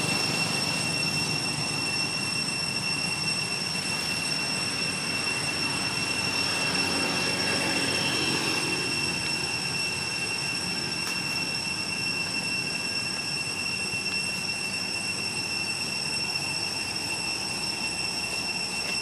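Steady high-pitched insect drone, typical of cicadas in tropical forest, holding one unchanging whine with overtones above a constant hiss.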